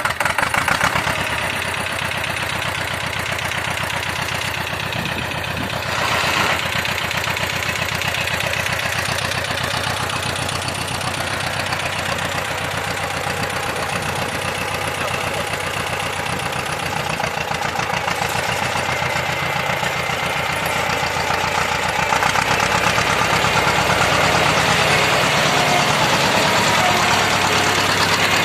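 T-25 tractor's two-cylinder air-cooled diesel engine running steadily just after starting, with a brief rise about six seconds in and running louder from about 22 seconds in.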